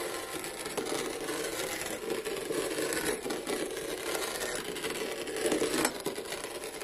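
Kinetic sand being scraped and cut: a continuous grainy scraping.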